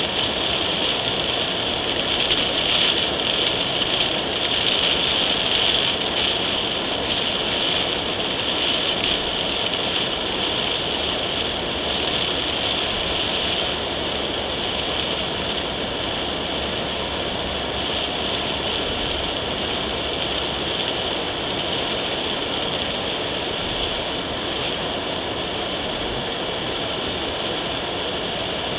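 Heavy rain pelting a car, heard from inside the cabin, over the steady noise of the car driving on a flooded road; a little louder in the first few seconds.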